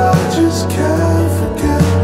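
Background music: a slow song with a held bass line and a sustained melody.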